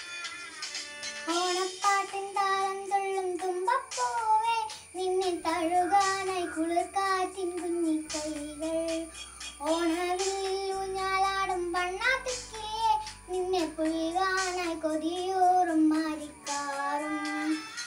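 A young girl singing a song solo, her voice carrying the melody over instrumental accompaniment with low bass notes and a regular beat.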